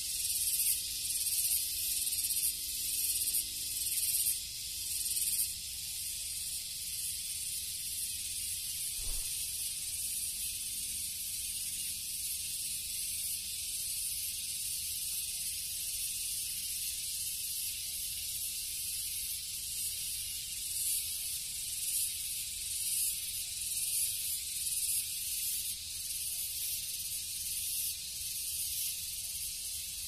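Cicadas buzzing in a dense, high-pitched drone that swells and fades about once a second at first, then runs steadier with some pulsing later on.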